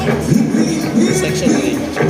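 Live rock band playing, with a melodic line sliding up and down in pitch over the accompaniment.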